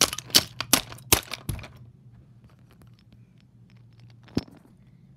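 Wooden toy train engines and track being handled: a quick run of about six sharp wooden clacks in the first second and a half, then a single knock about four seconds in, over a low steady hum.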